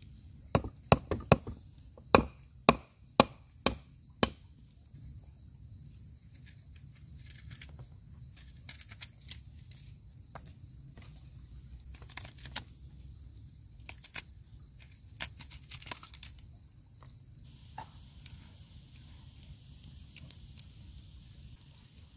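Cleaver chopping on a wooden chopping block: a quick run of about ten sharp knocks in the first four seconds, then only scattered light knife clicks. A steady high insect chirring runs underneath until it cuts off suddenly about three-quarters of the way through.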